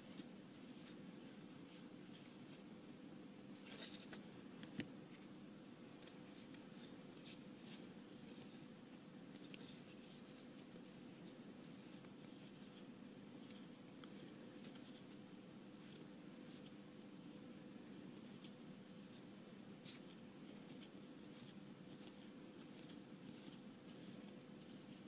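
Faint sliding and flicking of trading cards being passed from hand to hand while looked through, with a few sharper card flicks scattered through, over a faint steady hum.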